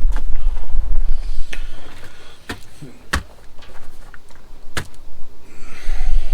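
Handling noises: about four separate sharp clicks and knocks a second or so apart, over a low rumble that fades after the first couple of seconds and comes back near the end.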